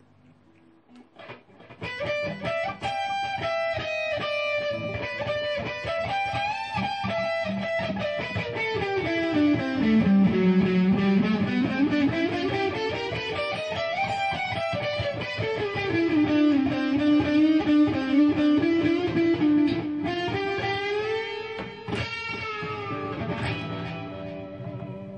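Distorted electric guitar played through a Me All Sound MP80D digital delay pedal in its 1000 ms modulated-delay mode. Sustained notes glide up and down in pitch. The playing starts about a second and a half in and dies away near the end.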